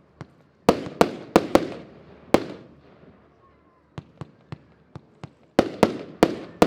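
Diamond Revolution 158-shot fireworks battery firing: sharp bangs in irregular volleys, each ringing out in an echoing tail. There is a loud burst of cracks in the first couple of seconds, a run of fainter pops around four seconds in, and another loud volley near the end.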